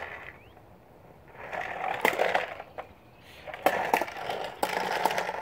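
Corn popper push toy rolled over concrete: plastic wheels rumbling on the pavement while the balls inside the clear plastic dome clatter and pop, in two spells, one about a second and a half in and a longer one from about three and a half seconds on.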